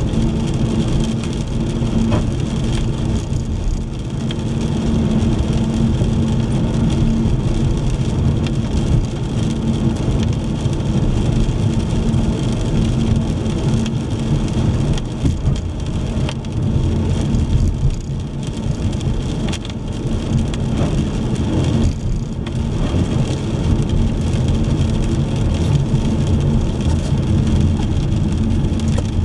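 A car driving in the rain: steady engine and road noise with a low hum, mixed with rain on the car.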